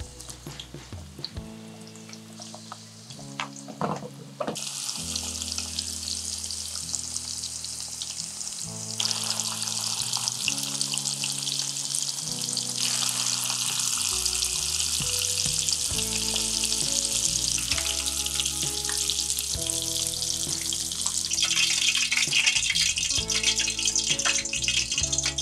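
Salmon pieces deep-frying in hot oil: a dense, steady sizzle that starts about four seconds in and grows louder near the end, then cuts off. Soft background music plays underneath, and a few light clicks come before the sizzle.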